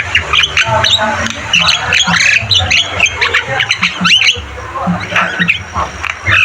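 Javan mynas calling: a rapid, continuous jumble of harsh squawks, chatter and short whistled sweeps, with several birds overlapping.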